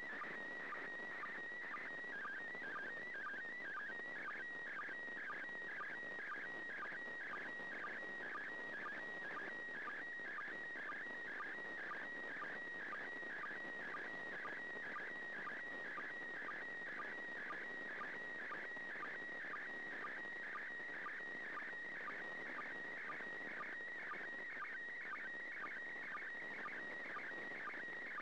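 Slow-scan television (SSTV) signal from the International Space Station in PD120 mode, heard through an FM ham radio on 145.800 MHz. A warbling, whistling tone is broken by short lower sync pips about twice a second, over steady receiver hiss. Each pip marks the start of new picture lines as the image is decoded.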